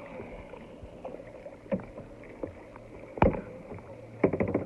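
Kayak paddling: the paddle strokes through the water with sharp knocks and splashes against the hull, the loudest about three seconds in and a quick run of knocks near the end.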